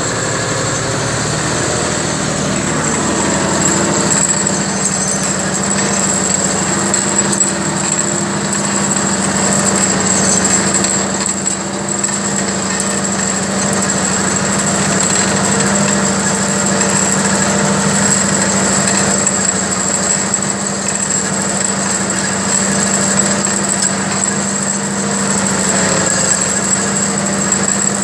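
Massey Ferguson Dynashift tractor's diesel engine running steadily under load while pulling a mouldboard plough through the soil, heard from inside the cab. A steady high whine sits over the engine note.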